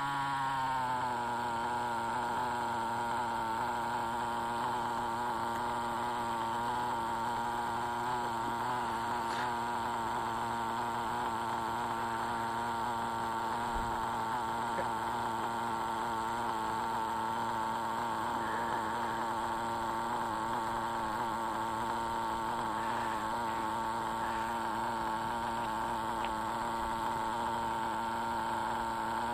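Two-stroke .21 nitro engine of a Traxxas T-Maxx monster truck idling. Its pitch falls in the first second as the revs settle, then holds steady.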